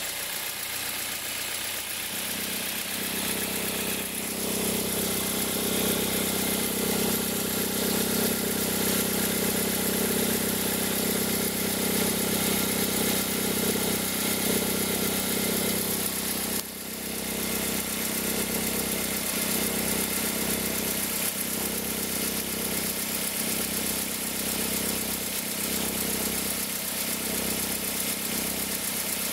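2003 Toyota Corolla engine idling cold with a steady mechanical noise that grows louder about two seconds in and dips briefly at about seventeen seconds. The noise appears only while the engine is cold and has been traced with a stethoscope to the accessory-belt tensioner.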